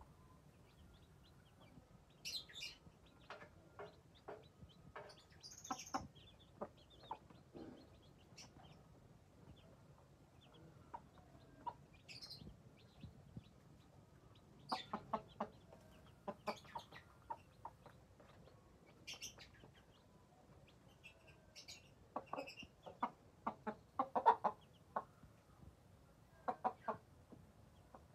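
A hen and her young chicks feeding on grain on a hard floor: quick clusters of beak taps against the ground, with short high chick peeps now and then.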